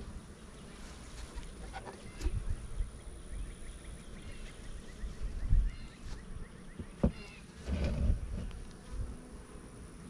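Honeybees buzzing around an open hive, with a few sudden knocks and bumps from the wooden hive parts being handled; the loudest bump comes about halfway through.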